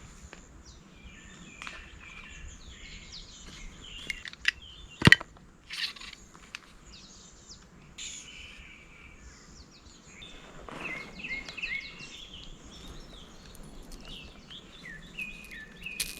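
Birds chirping and calling repeatedly, with a single sharp click about five seconds in and a few fainter knocks.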